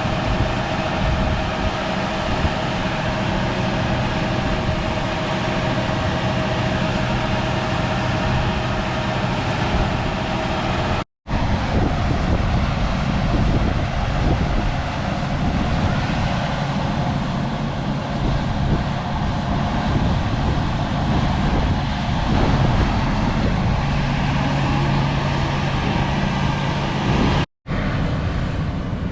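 Large harvest machinery running steadily: a heavy diesel engine drone with steady tones over it. The sound breaks off for an instant twice, about eleven seconds in and near the end, and the engine tone is different after the first break.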